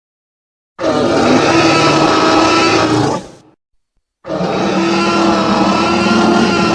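Tyrannosaurus rex roar sound effect: a long, rough roar starting about a second in and fading out after about two and a half seconds, then a second roar of the same kind beginning a little past halfway.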